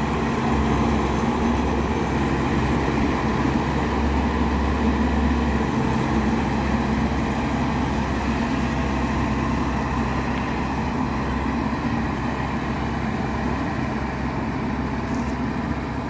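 Combine harvester engine running steadily, a constant low engine hum that does not change.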